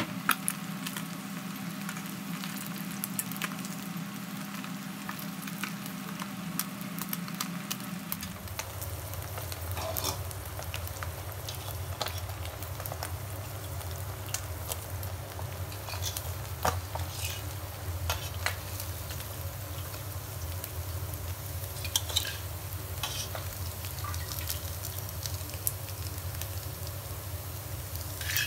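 Butterflied sun-dried snakeskin gourami deep-frying in a pot of hot oil, sizzling and crackling steadily with a few sharper clicks and pops. A steady low hum runs underneath and drops in pitch about eight seconds in.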